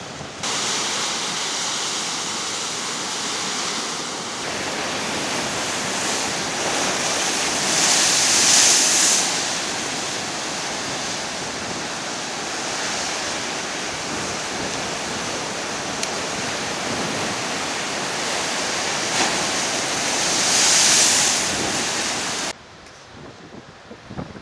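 Atlantic surf breaking against rocky sea cliffs: a steady loud rush that swells louder twice as bigger waves break, with wind buffeting the microphone. Shortly before the end the surf drops away abruptly, leaving lighter wind.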